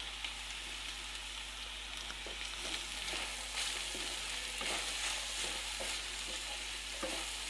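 Diced carrots, onion and green chillies frying in oil in a metal pan with a steady sizzle, the carrots half-cooked. A few seconds in, a spatula stirs them, adding scattered scrapes against the pan.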